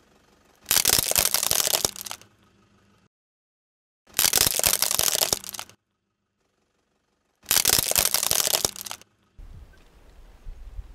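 Plastic handheld water-game toys crunching and cracking under a car tyre: three loud crackling bursts, each about a second and a half long, with dead silence between them. A faint low rumble comes in near the end.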